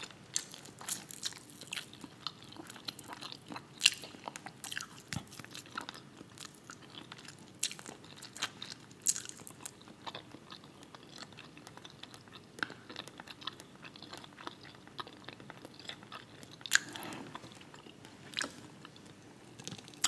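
Close-miked chewing with irregular sharp crunches and clicks, a few of them much louder than the rest.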